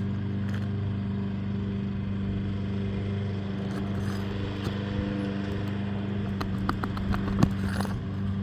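A steady low machine drone, with a few sharp taps and clicks about two-thirds of the way through.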